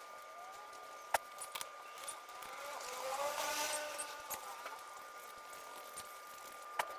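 A vehicle passing by, swelling and fading in the middle, over a steady high whine, with two sharp clicks: one about a second in and one near the end.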